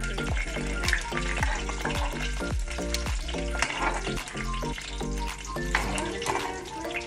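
Metal tongs and a knife scraping and clinking on a plate as pieces of grilled chicken are moved about, a crackly run of small clicks. Background music with a steady beat plays underneath.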